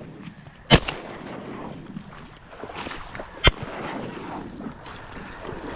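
Two shotgun shots about three seconds apart, fired at flushed snow geese.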